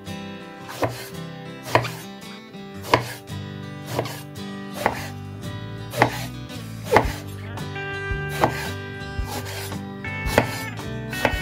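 Chef's knife slicing through an aubergine and striking a bamboo cutting board, about one cut a second.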